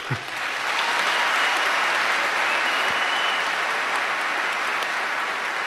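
Large audience applauding, swelling up within the first half second and then holding steady.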